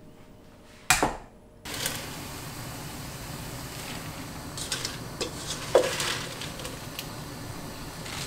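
A sharp knock about a second in, then a steady hiss from the gas stove as handfuls of leafy greens are dropped into an aluminium saucepan, with leaves rustling and a light metal clink partway through.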